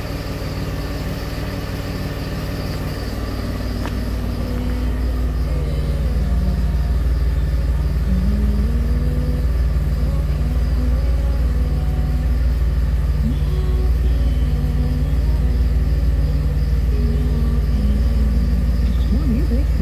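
DeLorean DMC-12's PRV V6 idling, a steady low rumble that grows louder about five seconds in.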